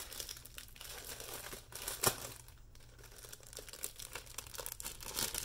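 Packaging crinkling and rustling as a wrapped packet is pulled open by hand, with one sharp snap about two seconds in.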